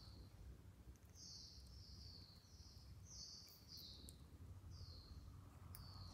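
Sunbird giving a series of short, high-pitched chirps in quick runs of two to four notes, with brief pauses between the runs.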